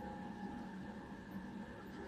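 Steady low background hum of a small room, with a few faint constant tones and no distinct event.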